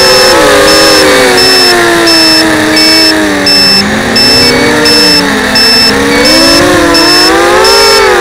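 FPV quadcopter's electric motors whining, heard close up from the onboard camera. Their pitch drops and then climbs again as the throttle changes, while a high-pitched beeper sounds a little under twice a second.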